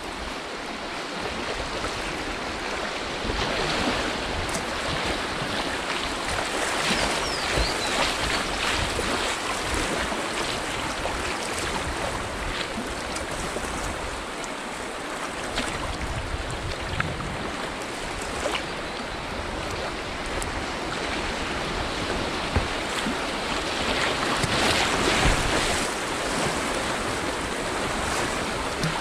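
Whitewater rushing and splashing around a kayak running small river rapids, a steady hiss of moving water. It surges louder a few seconds in and again near the end as the kayak goes through the waves.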